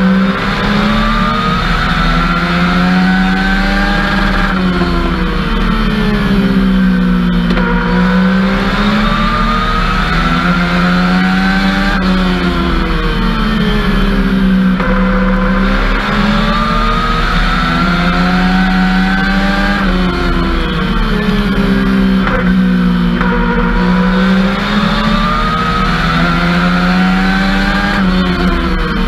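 Legends race car's Yamaha four-cylinder motorcycle engine heard from inside the cockpit while racing. The engine note climbs for a few seconds under acceleration, then drops sharply as the driver lifts off, repeating about every four seconds.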